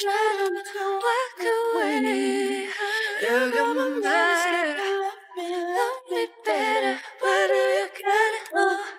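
Background song: a female voice singing a slow melody of held notes that glide between pitches, with little accompaniment.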